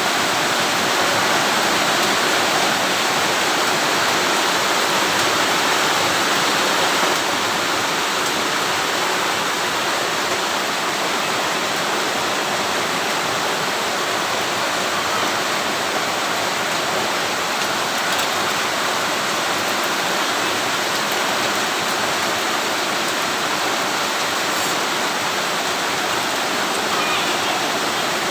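Electric arc welding: a steady, continuous crackling hiss of the arc.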